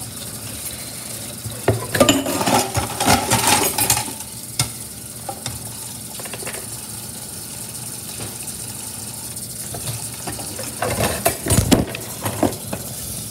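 Crinkling of a chocolate bar's foil-lined wrapper being handled and opened, loudest in bursts from about two to four seconds in. Near the end comes another burst of rustling with a dull bump as the phone is picked up and handled.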